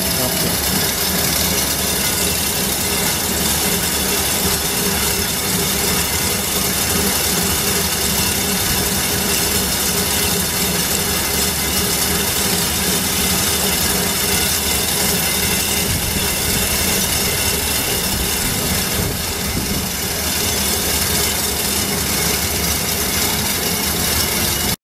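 Long Year razor wire making machine running, its rollers feeding barbed razor tape into the coiling head that winds it into a concertina coil: a loud, steady, dense mechanical running noise with a few steady tones in it.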